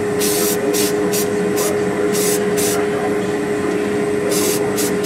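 Aerosol can of high-build filler primer spraying in short hissing bursts: several in the first three seconds, a pause, then two more near the end. Under it runs a steady hum.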